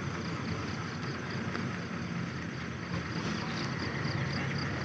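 Steady low rumble of an idling bus engine, with a thin, high pulsing chirp repeating about three times a second.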